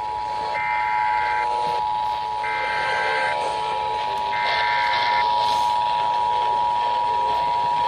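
EAS Attention Signal: the steady two-tone alert tone, which the EAS standard sets at 853 and 960 Hz, sounding throughout and cutting off at the end. In the first five seconds three bursts of SAME header data tones, each about a second long and about two seconds apart, overlap it.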